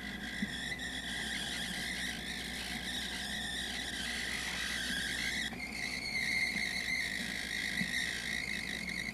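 High-pitched steady squeal from a running RCA CC250 VHS camcorder, picked up by its own microphone, stepping slightly up in pitch about halfway through. The owner suspects it might be another bad belt.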